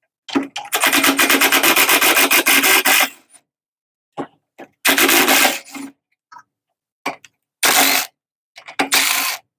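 Hand driver backing out the small Phillips and 1/4-inch screws that hold the choke assembly and shroud bracket on a Tecumseh engine's carburetor. It makes a run of rapid ratcheting clicks lasting about two and a half seconds, then three shorter bursts near the middle and the end.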